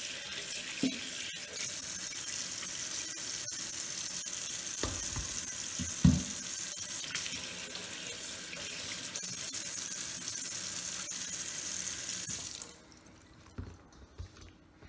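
Kitchen tap running onto raw chicken pieces being rinsed by hand in a stainless steel sink, with a thump about six seconds in. The water shuts off suddenly near the end, leaving a few soft handling sounds.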